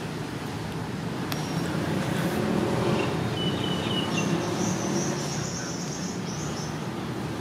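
Steady low rumble of road traffic that swells around the middle and eases off, with a few faint high chirps partway through.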